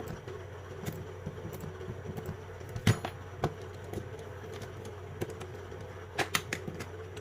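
Scattered light clicks and taps from handling lithium battery cells and their nickel connecting strips, with a small cluster of clicks a little after six seconds, over a steady low electrical hum.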